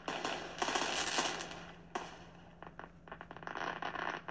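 Crinkling and rustling of something handled right next to the microphone, in irregular bursts that stop abruptly after about two seconds, then scattered clicks and a shorter rustle near the end.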